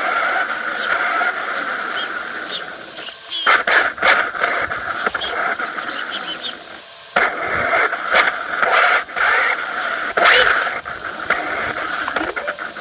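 Traxxas Slash RC truck's electric motor whining as it drives, cutting out briefly twice, about three and a half seconds in and again around six to seven seconds in. Frequent clicks and knocks from the truck jolting along.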